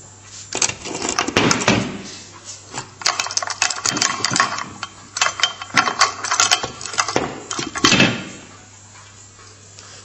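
VAZ-2107 propeller shaft centre support bearing being turned and worked by a gloved hand in its rubber mount: several bursts of clicking, rattling and rubbing that stop about eight seconds in.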